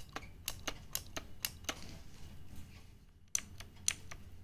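Keys of a Redgear Shadow Blade MK853 mechanical keyboard with blue clicky switches being pressed, giving sharp separate clicks: a quick run of them, a short lull in the middle, then a few louder ones near the end.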